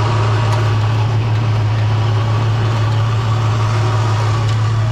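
Jeep engine running steadily at one low, even pitch, during an off-road recovery on slippery ground.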